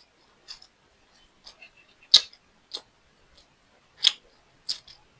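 Close-miked eating sounds from a mukbang meal of fried rice: about six sharp, irregular crunching clicks in five seconds, the loudest a little after two seconds in and again at about four seconds.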